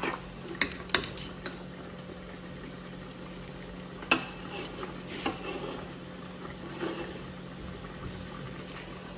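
Metal spoon clinking against a stainless-steel mesh strainer and the rim of a cooking pot as meat broth is spooned through it, a handful of sharp clinks spread apart, over a faint steady hum.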